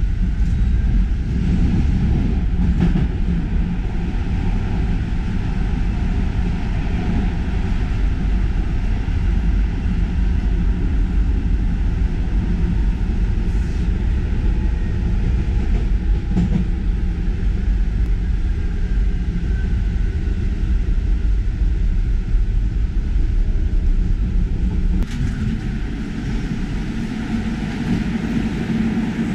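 Metro train running through a tunnel, heard from inside the carriage as a loud, steady rumble with a few faint clicks. The rumble eases slightly near the end.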